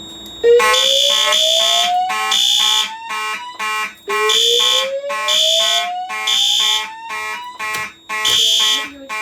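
Fire alarm horns (Simplex and System Sensor notification appliances) sounding in repeating on-off pulses, setting off about half a second in as the system goes into alarm from a pulled manual pull station. A tone also climbs slowly in pitch twice, each rise lasting about three seconds.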